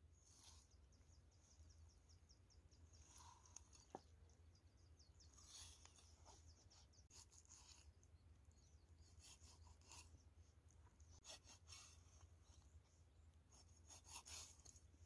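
Faint scraping and rasping strokes of a cleaver slicing through a raw whole chicken on a wooden chopping board, with a single sharp tap about four seconds in.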